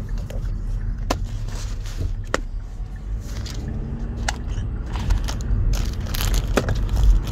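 Steady low rumble inside a car, with scattered sharp clicks and short crackles from things being handled close to the microphone.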